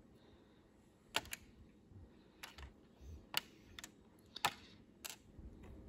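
Magnetic pen and small plastic beads clicking against a plastic dot-art board as beads are placed in the grid: about eight light, sharp clicks at irregular intervals.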